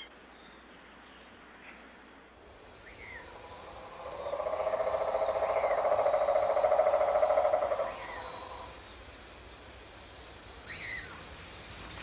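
Night-time insect chorus: a steady high-pitched trill throughout, joined about four seconds in by a louder, lower, rapidly pulsing call that lasts about four seconds, with a few faint short chirps scattered through.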